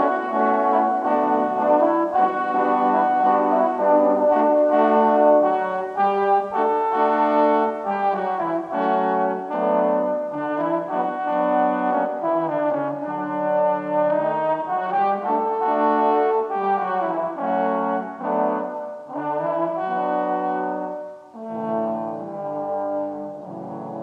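Several French horn parts, multitracked by one player, playing a slow ballad arrangement in harmony. Near the end the music dips briefly and goes on more softly with sustained notes.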